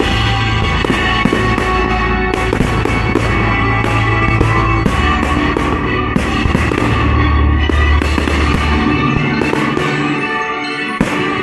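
Classical music playing loud through a pyromusical fireworks display, with many firework shells bursting and crackling over it.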